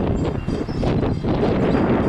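Strong wind gusts buffeting the microphone, a loud low rumble that eases briefly in the first second.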